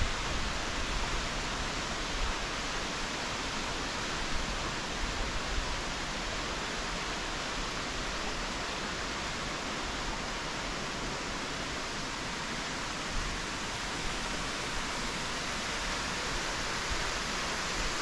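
Waterfall plunging into its pool: a steady, even rush of falling water.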